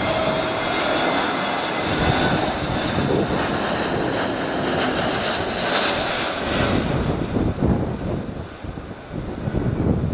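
Airbus A321neo jet engines whining over a broad rush of engine noise as the airliner passes on landing; the sound swells about midway and then fades.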